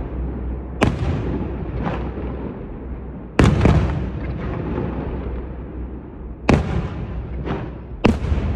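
Fireworks exploding: six separate bangs, two of them fainter, the loudest about three and a half seconds in, each trailing into a rolling echo and rumble.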